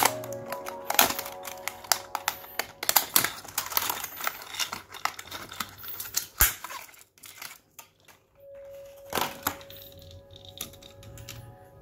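Clear plastic lure box being opened and handled, with a quick run of sharp clicks and crinkles as the hard plastic minnow lure is taken out. The clicks thin out after about seven seconds. Soft background music plays throughout.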